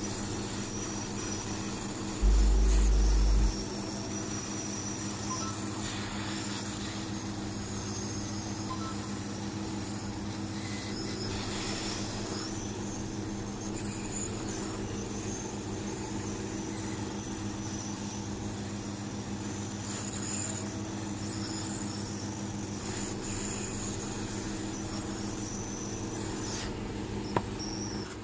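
Steady low electrical hum with faint background noise, broken by a loud low rumble lasting about a second, two seconds in.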